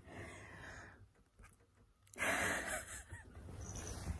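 A person breathing audibly: one breath at the start, then a louder breath about two seconds in that lasts about a second.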